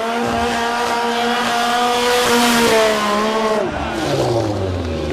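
Sport motorcycle engine held at steady high revs during a burnout, the spinning rear tyre adding a rushing squeal; about three and a half seconds in the revs drop away.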